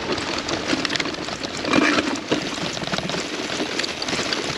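Gravel bike riding over rough, dry grass, heard from a handlebar-mounted camera: steady tyre noise with constant small rattles and knocks from the bike.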